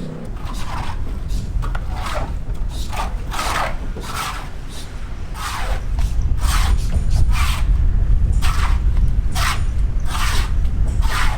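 Repeated short scraping strokes at an uneven pace, about one or two a second, over a low rumble that grows louder about halfway through.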